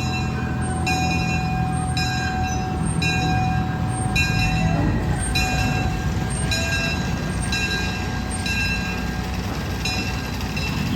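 A park ride train running: a steady low drive hum with a sharp clack and short metallic ring about once a second.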